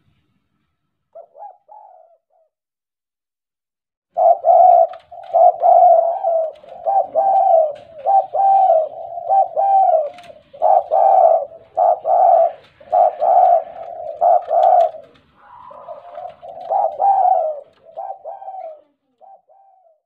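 Spotted dove cooing its courtship call: a short soft coo about a second and a half in, then from about four seconds a long run of low repeated coos in phrases with brief pauses.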